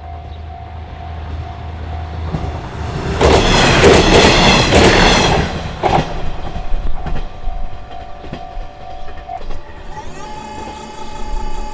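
A JR Hachiko Line train passing over a level crossing: wheel rumble and clatter that swell to their loudest from about three to six seconds in, then fade. A steady tone runs under it, stops, and a different tone starts near the end.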